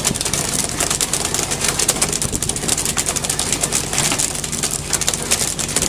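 A fishing boat's engine running steadily under a constant rush of wind and sea, with scattered short knocks.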